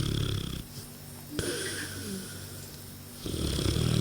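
Mastiff-cross dog snoring in its sleep: one low snore ends about half a second in, and the next starts a little after three seconds in.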